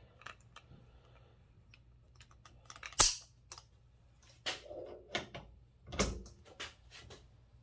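Icon split beam torque wrench being pulled on a torque tester set at 50 foot-pounds: one loud, sharp click about three seconds in as the wrench releases, then several lighter metal clicks and a dull knock as the wrench and socket are handled.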